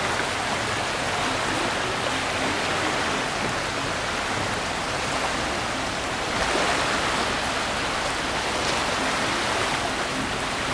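Steady rushing hiss of wind and small surf at the water's edge, with no distinct events; it gets a little louder about six and a half seconds in.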